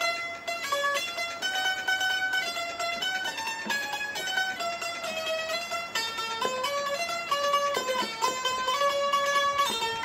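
Bulbul tarang (keyed Indian banjo) playing a single-line melody: the strings are plucked while the keys are pressed, and sustained notes step from pitch to pitch.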